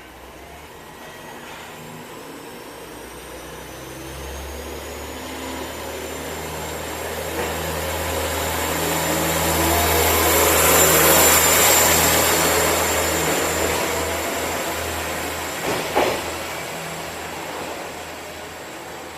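Single-car KiHa 47 diesel railcar pulling out and passing by: its diesel engine and running gear build steadily to a peak about halfway through, then fade away. A sharp knock of the wheels comes about three-quarters of the way through.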